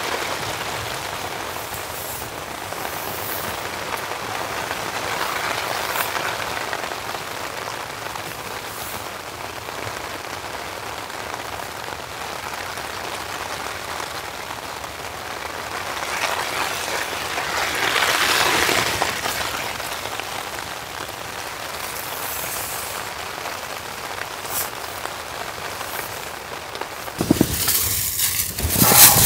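Steady light rain falling, its hiss swelling and fading in slow waves, with a few sharp drop ticks. Near the end there is a louder burst of noise.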